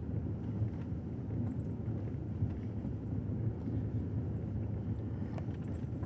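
A car's engine and tyres give a steady low hum as the car creeps around on a muddy track.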